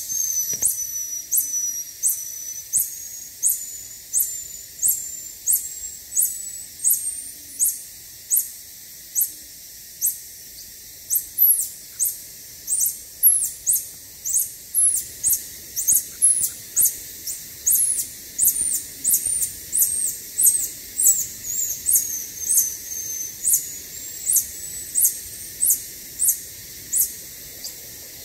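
Tarsiers calling: a long run of very high-pitched, short squeaky calls, about one and a half a second, some held on one pitch and others sliding up or down.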